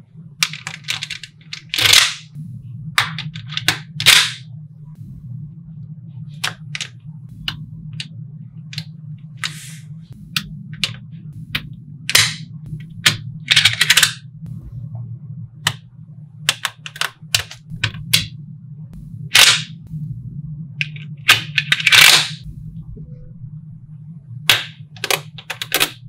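Small magnetic balls clicking and snapping together as rows and sheets of them are handled and set onto a model: sharp single clicks and short rattling clatters at irregular moments, over a low steady hum.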